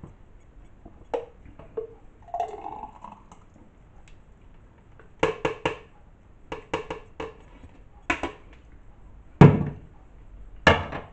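Blender jug clinking and tapping against a drinking glass while thick smoothie is poured out, in short clusters of clicks, then two louder thumps near the end.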